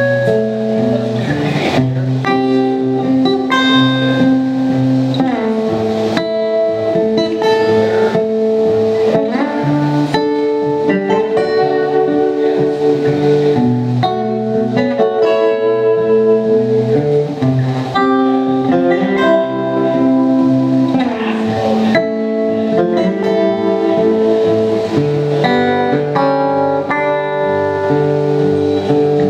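Two acoustic guitars playing an instrumental duet, one a natural-finish steel-string acoustic and the other a red-bodied acoustic guitar, with held notes and changing chords.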